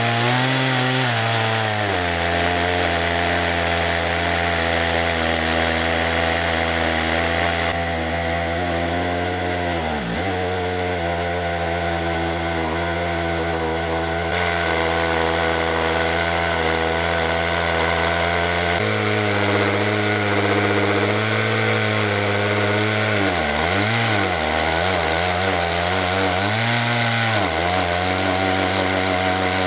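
Two-stroke chainsaw clamped in a homemade chainsaw mill, running at high revs while ripping lengthwise through a log. Its pitch sags briefly about ten seconds in and several times in the last third.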